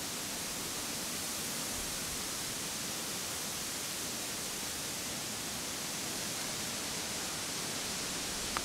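A steady, even hiss with no distinct events, and a single short click near the end.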